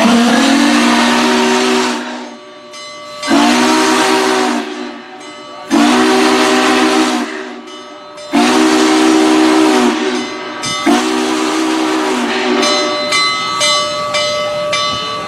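Union Pacific 844, a 4-8-4 steam locomotive, blowing its steam whistle in five loud blasts with short gaps between them, each a chord of several tones over steam hiss. After the last blast a softer steady hiss carries on.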